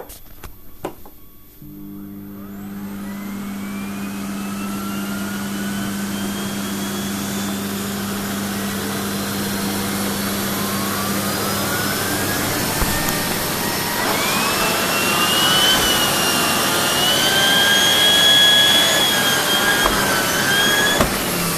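Sebo vacuum cleaner switched on about two seconds in, its motor whine rising as it spins up and then running steadily, the pitch of the whine shifting in the later part. It runs with a fresh fleece bag fitted, which has brought the suction back to full.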